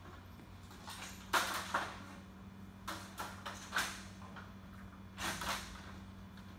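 Scattered clunks and short scrapes of hands-on work on a steel trailer frame, the loudest about a second and a half in, over a steady low hum.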